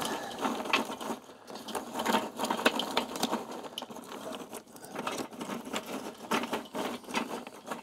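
Charcoal clinking and rattling as hands dig into a metal charcoal basket, burying apple wood chunks among the coals: a dense, irregular run of small clicks and scrapes.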